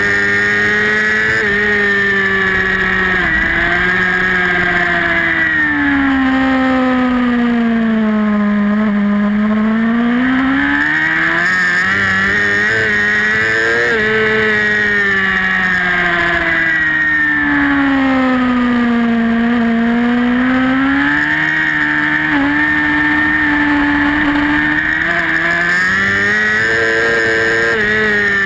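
Racing superbike engine at full race pace, recorded by a camera mounted on the bike. Its pitch steps up and down with gear changes and throttle, dropping twice in long dips, about eight and nineteen seconds in, then climbing again.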